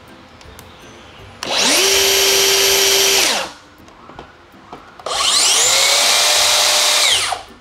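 Two cordless track saws, a DeWalt DCS520NT and a Makita DSP600Z, run one after the other with no load, each for about two seconds, then stop quickly under the electric brake. The second run whines clearly higher, matching the Makita's 6,300 rpm no-load blade speed against the DeWalt's 4,200 rpm.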